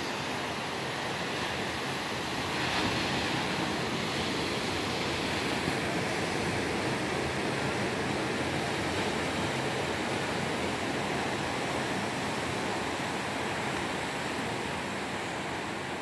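Caribbean sea surf breaking on the shore: a steady wash of waves, growing louder about three seconds in and then easing.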